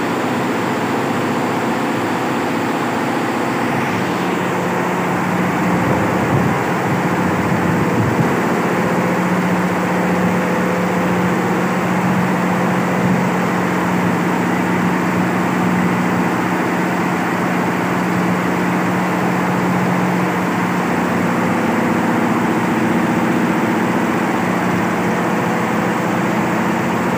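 A 23-head Allies computerized embroidery machine stitching at 900 RPM: steady, loud mechanical running of the many needle heads, with a steady low hum joining about four seconds in.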